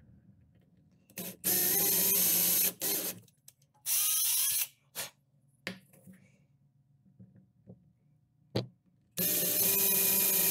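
Handheld power drill boring small holes into a carved wooden lure body, run in short bursts: three longer runs of about a second each, plus a few brief blips in between. The motor whine rises as it spins up.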